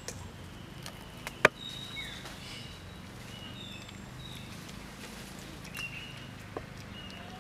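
Outdoor ambience: scattered short, high-pitched chirps, one of them falling in pitch, and a few sharp clicks over a faint low hum. The loudest click comes about one and a half seconds in.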